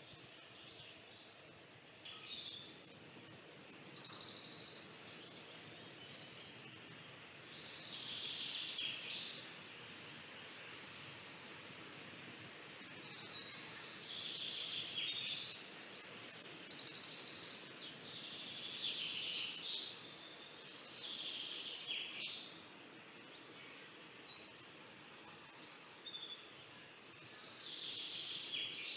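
Pencil scratching on paper in runs of quick back-and-forth shading strokes, about six runs of a few seconds each with short pauses between.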